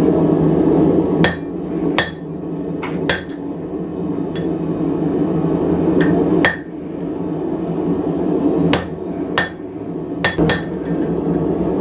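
Hammer blows on coil-spring steel at the anvil, cutting the piece in half: about ten irregularly spaced strikes, each with a short metallic ring. Underneath runs a steady low roar.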